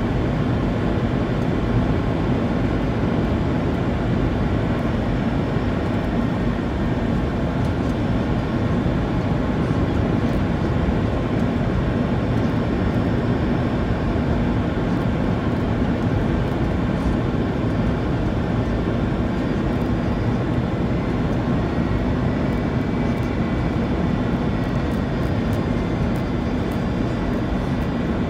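Airliner cabin noise during the landing descent: the steady rush of engines and airflow heard from inside the passenger cabin, with a faint high whine over it.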